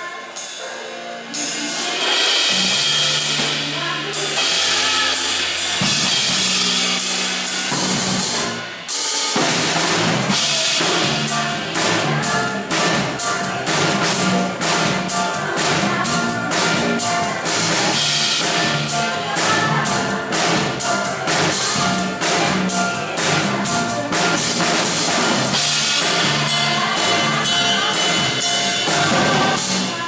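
Live pop band rehearsing a song: a sparse opening with held bass notes, a brief break about nine seconds in, then the full band with a drum kit playing a steady beat.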